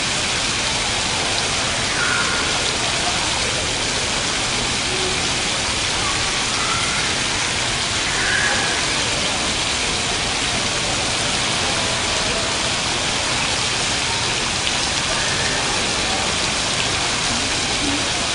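Digital water-curtain fountain: many streams of water droplets falling and splashing onto a basin, giving a steady, even rain-like hiss.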